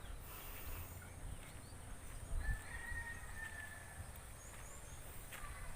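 Quiet rural outdoor ambience: a steady high insect drone, with one short whistled note, likely a bird, about halfway through and a low rumble of wind on the microphone.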